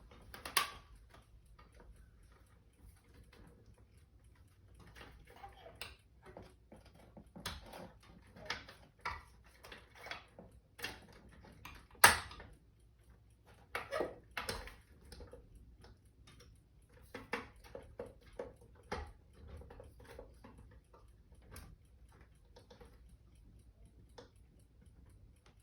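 Window shade being forced into its mounting bracket clips: irregular clicks, taps and knocks, with one loud sharp click about twelve seconds in.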